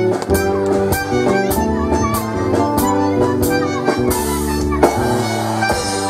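A tune played on a mini organetto, a small diatonic button accordion, in held reedy notes over a steady drum beat.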